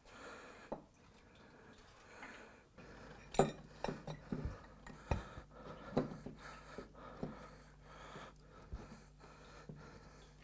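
Irregular metallic clinks and knocks of tools and parts being handled in an engine bay, over a faint steady hum that sets in a few seconds in.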